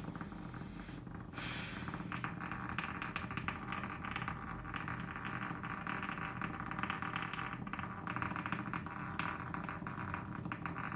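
Hexbug's tiny vibration motor buzzing, its body rattling rapidly on a hardwood floor. A short scratchy burst comes about a second and a half in, and the rattle then carries on steadily.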